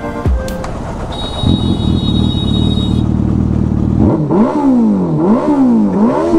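Superbike engine idling, then revved three times in quick succession, the pitch rising and falling with each blip.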